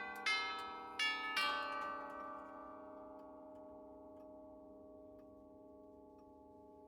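Tubular chimes of a nine-tube grandfather clock striking the last three notes of a chime tune in the first second and a half, then ringing on and slowly dying away. Faint ticks of the clock are heard under the fading ring.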